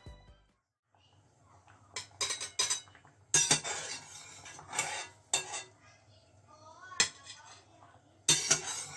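Metal spoon clinking and scraping against a stainless steel pot as boiled rice dumplings are scooped out of the water, with scattered sharp clinks and a quick cluster of them near the end.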